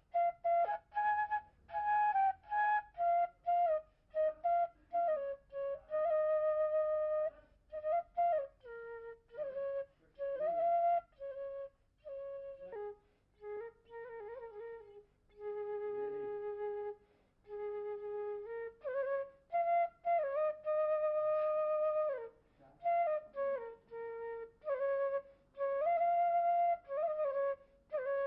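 Bamboo flute (bansuri) played solo: a slow melody of held single notes in short phrases, with slides and quick ornamental turns between notes and brief pauses for breath.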